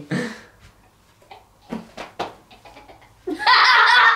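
People chuckling in short, faint bursts, then a loud burst of laughter about three seconds in.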